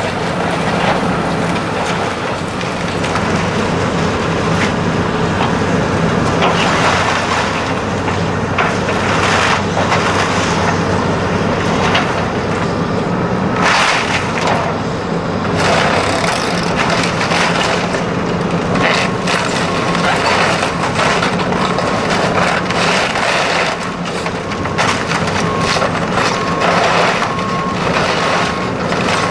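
Mill machinery running steadily: a constant low hum under a dense rattling and crackling, with a faint beep repeating during the last third.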